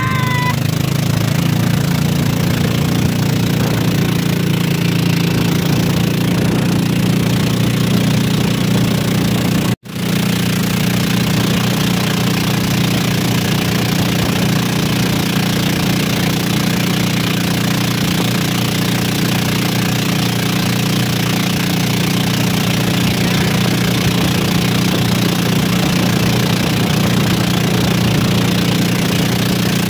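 Motorized outrigger boat (bangka) engine running steadily, a loud low drone. It cuts out for an instant about ten seconds in, then carries on.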